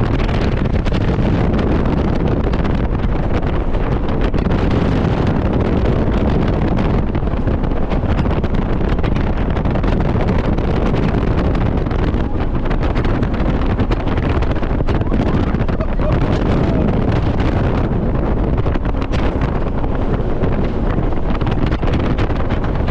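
Steady rush of wind buffeting the microphone over the noise of a jet boat running at speed across a river, its engine and the water against the hull blending into one continuous roar-free din.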